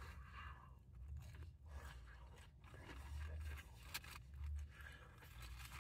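Faint crunching and chewing of a crispy breaded chicken tender, with a steady low hum underneath.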